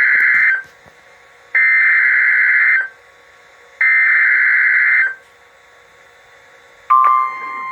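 Emergency Alert System SAME header: three bursts of rapid digital data warble, each a little over a second long with about a second's pause between them, the first already under way; this coded header opens a severe thunderstorm warning. Near the end the steady alert attention tone starts.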